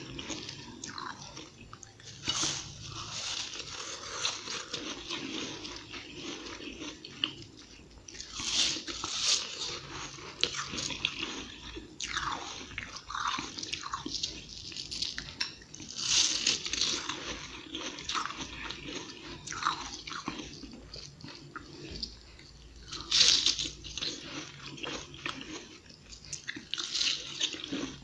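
Flaky, fluffy frozen ice being bitten and chewed close to the microphone: bursts of crisp crunching that come and go over and over, with the loudest bite about twenty-three seconds in.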